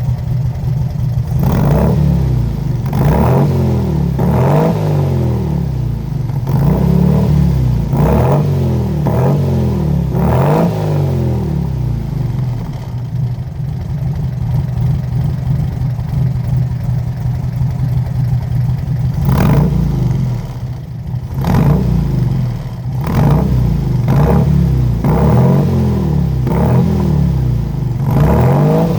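Volkswagen Fusca's air-cooled flat-four engine running through a Kadron exhaust, idling and blipped again and again with short revs that rise and drop back to idle. There is a steadier idle stretch in the middle, and the revs come thicker again near the end.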